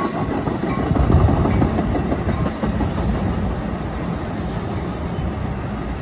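Amtrak Pacific Surfliner bilevel passenger cars rolling past: a steady rumble of steel wheels on the rails, loudest about a second in.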